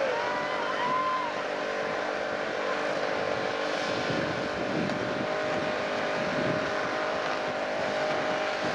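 Car engine held at high revs during a burnout, the rear tyres spinning and squealing on the pavement; the sound stays steady throughout.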